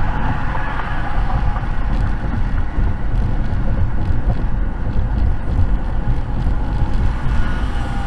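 Steady low road noise inside a car's cabin at highway speed: tyres and engine, with some wind.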